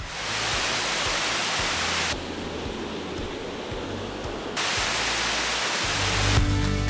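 Steady rushing water, an even hiss that turns duller and quieter for a couple of seconds in the middle. Guitar music comes in near the end.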